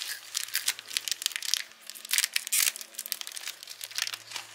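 Thin plastic cookie wrapper crinkling in rapid, irregular crackles as it is torn open and handled.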